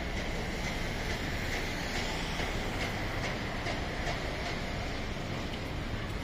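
Steady low rumble and hiss of street traffic, with faint regular ticks throughout.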